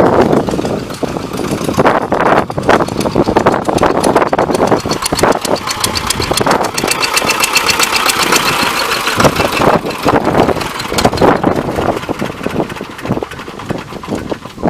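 T-25 tractor's two-cylinder air-cooled diesel running loudly on a test run after a cylinder rebuild meant to stop oil leaking. It grows louder around the middle and eases off near the end.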